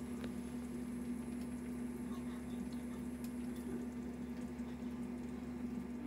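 Room tone: a low steady hum with faint background noise and a few faint ticks.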